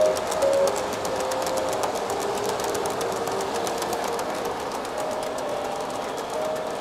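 Electric model train running steadily around the layout: a continuous rattle of wheels on the track with rapid clicking over the rail joints. A few held tones at changing pitches sound over it near the start and again toward the end.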